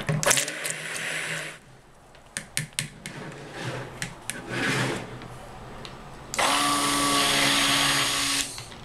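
Handheld stick blender running steadily for about two seconds in soap batter, starting about six seconds in, emulsifying the batter. Before it come clattering knocks of the blender against the bowl.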